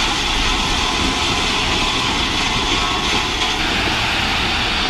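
Steady heavy-machinery noise: a dump truck's diesel engine running while gravel is loaded into its bed, a deep rumble under a hissing rush.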